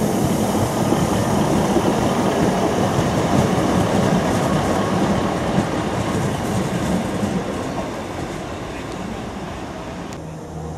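Arriva Trains Wales Class 150 Sprinter diesel multiple unit passing close by, its underfloor diesel engine and wheels rumbling on the rails with some clickety-clack. The sound is loudest for the first several seconds, then fades as the train draws away. Just before the end it cuts abruptly to a low steady hum.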